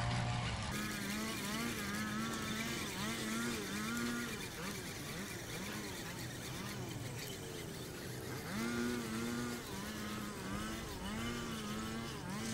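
Frogs calling from the reeds: runs of repeated short croaking notes, each rising then levelling, starting about a second in and coming again after about eight seconds.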